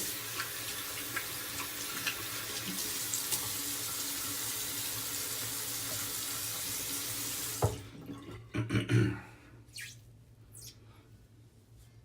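Water running from a tap into a bathroom sink in a steady stream, shut off a little over halfway through. A few brief louder handling sounds follow shortly after.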